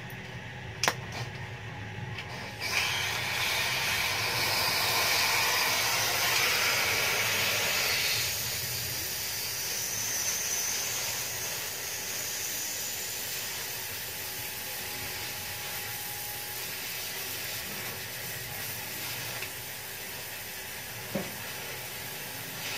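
Gas welding torch hissing steadily as it welds a motorcycle muffler casing. The hiss starts abruptly a little under three seconds in and is loudest for its first few seconds. A sharp click comes about a second in.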